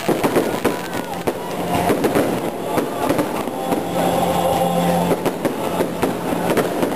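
Fireworks bursting overhead in quick succession, a dense run of bangs and crackles.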